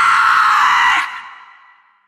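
A horror-effect scream: a high-pitched shriek held until about a second in, then cut off, leaving an echoing tail that fades away.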